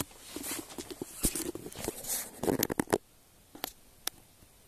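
Yellow Labrador retriever sneezing and snorting in a fit: several short, sharp sneezes in the first three seconds, then quieter with a couple of faint clicks.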